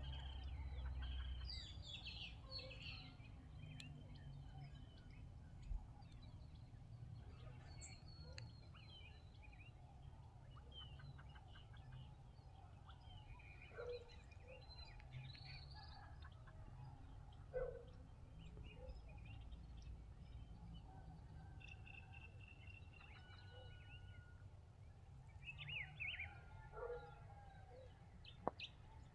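Faint forest ambience: various wild birds giving short, scattered chirps and whistles, a few of them held briefly on one note, over a low steady rumble.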